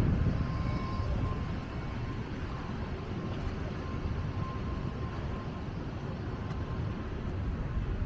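Wind rumbling on the microphone over the steady wash of surf, easing a little after the first second or two.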